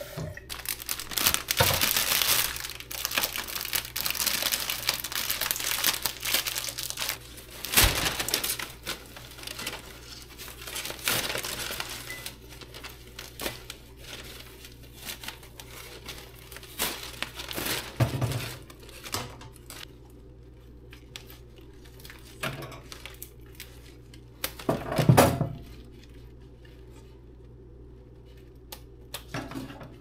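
Crinkling and rustling of a bouquet's plastic wrapping as it is pulled off and handled. The rustling is dense for the first dozen seconds, then comes in scattered bursts, with a few dull knocks, the loudest about 25 seconds in.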